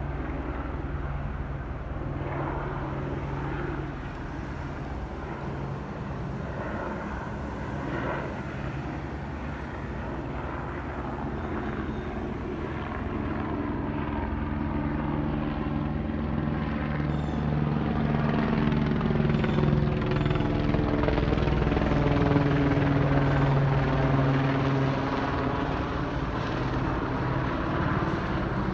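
Police helicopter flying overhead: a steady rotor and engine drone that grows louder from about halfway through and eases a little near the end.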